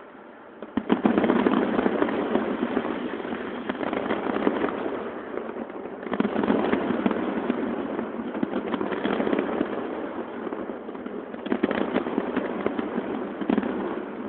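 Aerial fireworks display going off in a dense run of bangs and crackles, starting about a second in, with fresh volleys about halfway through and twice more near the end.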